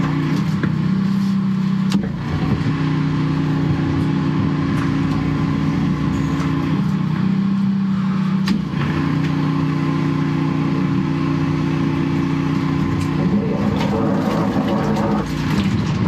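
Drain jetting unit's engine and high-pressure pump running steadily while the jet hose blasts through a blocked sewer pipe, the engine note stepping up and down a few times. A couple of sharp clicks sound about two seconds in and again past the middle.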